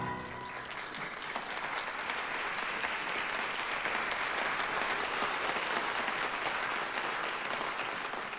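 Congregation applauding as the choir's last chord stops; the clapping builds over the first couple of seconds, holds steady, and begins to fade near the end.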